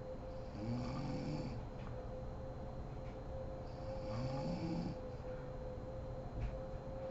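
A sleeping woman snoring: two snores about three seconds apart, each lasting about a second, over a steady low hum.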